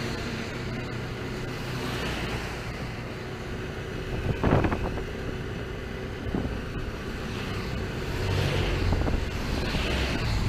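A motorcycle tricycle's engine running under a steady rushing noise of rain and water. A thump comes about four and a half seconds in, and the engine note grows stronger about eight seconds in.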